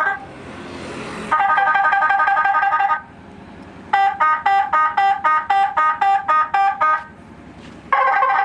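Telolet horn tunes played from a phone app through a modified police-siren module's speaker: multi-note, bus-horn-like chords in three spells with short hissy gaps, the middle one a quick rhythmic run of about four notes a second.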